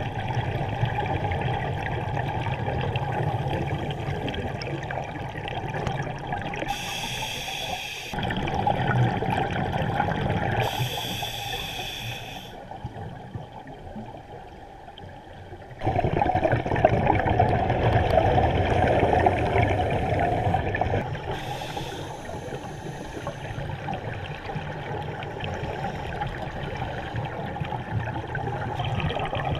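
Underwater sound of scuba divers breathing through their regulators: exhaled bubbles gurgle and rush in surges, with a quieter lull partway through. Three short high whistle-like tones come and go.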